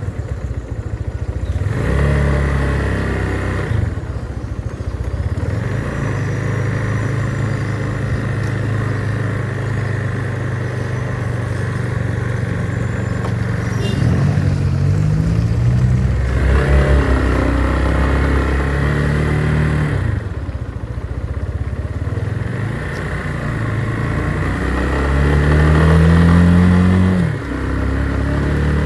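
Motorcycle engine running under way, climbing in pitch as it accelerates and dropping back at each gear change, the longest climb near the end; a steady rush of wind and road noise runs underneath.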